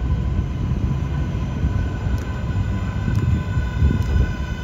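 R142A subway train pulling into an elevated platform: a steady low rumble of wheels on the rails with a few faint clicks. A high whine in several tones joins about a second in as the train slows.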